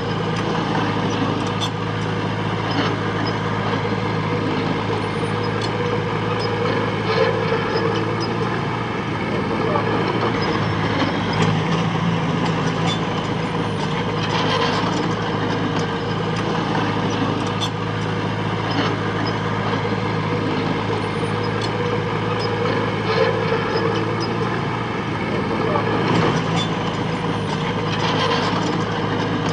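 Diesel engine of heavy earthmoving machinery running steadily, with scattered clanks and knocks over it.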